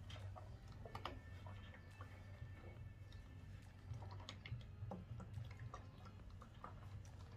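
Faint scattered clicks and rustles of a steam iron being worked over a cotton shirt on an ironing board, the cloth handled between strokes, over a steady low hum.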